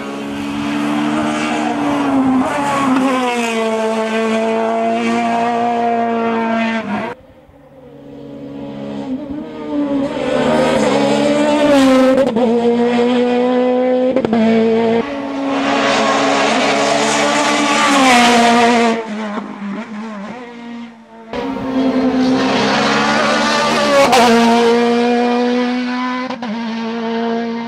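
Sports-prototype race car engine revving hard, its pitch climbing and dropping repeatedly as it goes through the gears and brakes for bends. The sound breaks off suddenly about 7 and 21 seconds in, where passes of the car are cut together.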